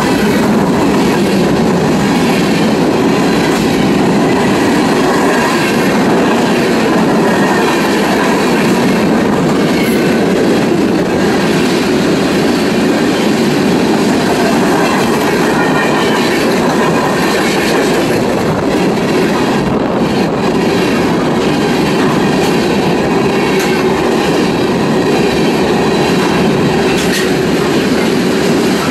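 Freight cars of a CSX train, covered hoppers and then tank cars, rolling past at a steady speed: a loud, steady rumble of steel wheels on rail with occasional clicks.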